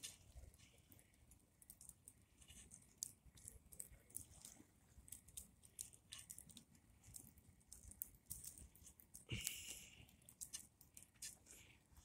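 Faint crackling and popping of a fire burning a plastic Atari 2600 joystick, with scattered sharp snaps and a brief hiss just after nine seconds.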